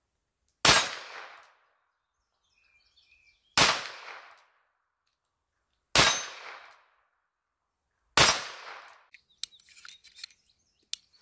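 Four single shots from an Uberti 1871 Navy single-action revolver in .38 Special, a few seconds apart, each dying away over about a second. Near the end come light metallic clicks as the revolver's loading gate and cylinder are worked.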